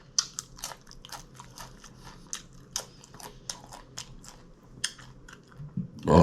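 Close-up chewing and biting of crunchy taco salad, with irregular crisp crunches about three a second. Near the end a loud vocal groan.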